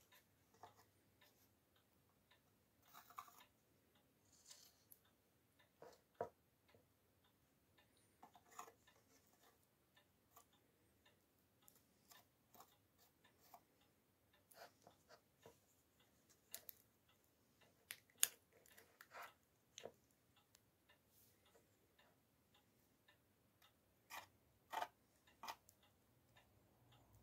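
Faint, irregular clicks and short scrapes of a small metal spatula picking up and spreading wood-filler paste over a worn wooden surface.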